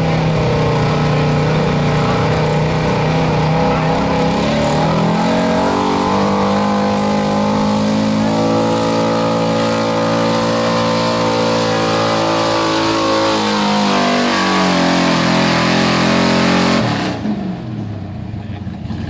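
1978 Chevrolet pickup's engine running hard at high revs as it drags a weight-transfer pulling sled. The engine note climbs, holds, then sags as the pull goes on, and is cut off suddenly near the end when the driver lets off the throttle.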